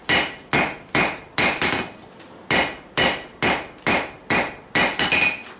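Hand hammer forging a hot railroad spike on a Vulcan 90-pound anvil, about two ringing strikes a second with a brief pause around two seconds in.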